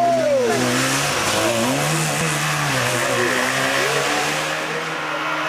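Trabant rally car's two-stroke engine revving hard as the car drives past close by, its pitch rising and falling with the throttle.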